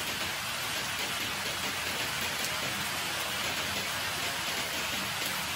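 Steady rain falling on a wet concrete yard, an even hiss with no breaks.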